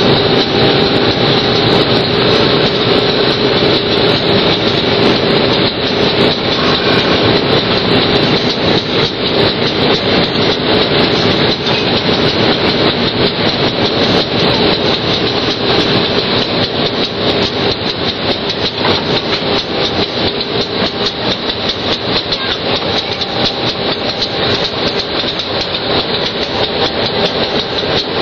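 CC203 diesel-electric locomotive's engine running loudly as the locomotive creeps onto a turntable, with repeated sharp metallic knocks and clacks as its bogie wheels cross the rail joint between the track and the turntable.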